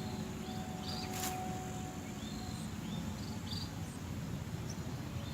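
Outdoor paddy-field ambience: a steady low rumble with scattered short, high, upward-hooking chirps from insects or birds, and one brief hiss about a second in.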